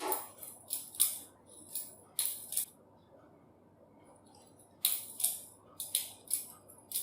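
A real balisong (butterfly knife) being flipped: sharp metallic clicks and clacks as the handles swing about their pivots and knock together. The clicks come in quick clusters, with a pause of about two seconds in the middle.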